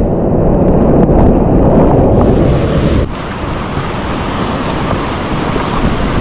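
Rushing whitewater of the Gave d'Ossau, a loud continuous roar. It sounds muffled for the first two seconds or so, then opens up.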